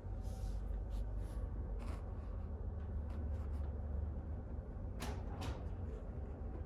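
A domestic cat sneezing twice in quick succession about five seconds in, two short sharp bursts of breath, over a steady low hum.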